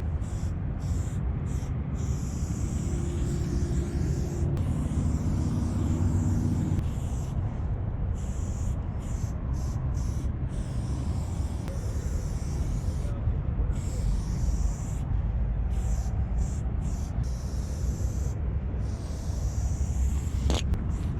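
Aerosol spray-paint can hissing in on-off bursts, over a steady low rumble of wind on the microphone.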